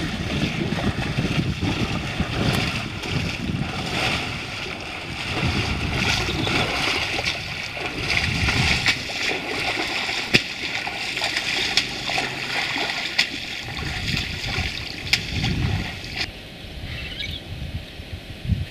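Water splashing and sloshing in a continuous rush, with a few sharp ticks about ten, thirteen and fifteen seconds in.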